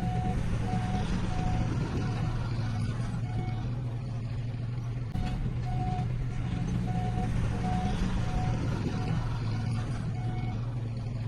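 Heavy diesel earthmoving machinery running steadily, with a reversing alarm beeping in an even rhythm of roughly one and a half beeps a second.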